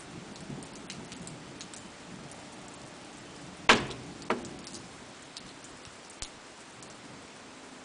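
Rain falling steadily, with scattered drops ticking on a hard surface. Two sharp knocks about half a second apart come near the middle, the first the loudest.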